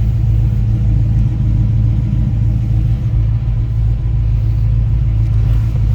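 Blueprint 355 crate small-block V8 idling steadily with an even, low rumble.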